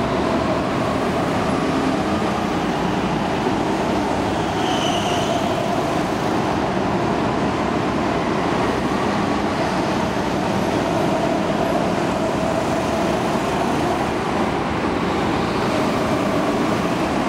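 Go-kart engines running as several karts lap an indoor track, a steady drone with the engine pitch wavering as they accelerate and pass. A short high squeal comes about five seconds in.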